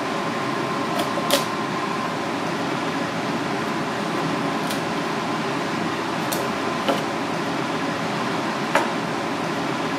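A knife knocking and cutting on a plastic cutting board as a fish is cut up, a handful of short sharp taps spread through, over a steady fan-like whir.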